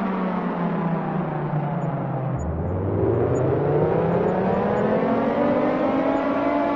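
Air-raid siren wailing: its pitch falls to a low point about two and a half seconds in, then rises again and levels off near the end.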